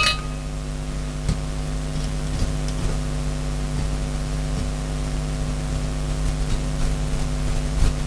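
Steady low electrical-sounding hum with a hiss, and a few faint light ticks from small tools on the carburettor.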